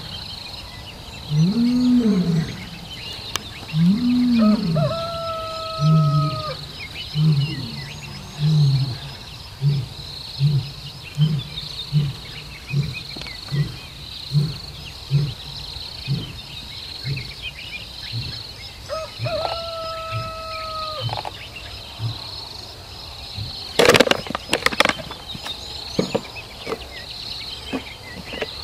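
A lion roaring: two long moans that rise and fall, then a run of short grunts, about three every two seconds, that trail off about halfway through. Crickets keep up a steady pulsing high trill, and a cluster of sharp crackles comes about two-thirds of the way in.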